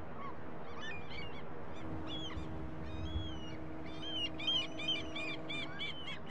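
Many birds calling, short arched calls repeated quickly and crowding together in the second half, over a steady rush of wind and waves. A low steady hum runs for a few seconds in the middle.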